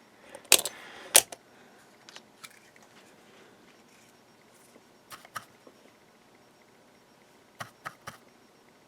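Sharp clicks and taps of small tools being handled and set down on a workbench during soldering: two loud knocks close together near the start, then lighter pairs of clicks in the middle and a few more near the end.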